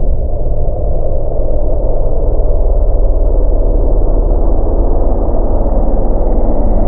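Tractor engine running steadily, a loud low drone.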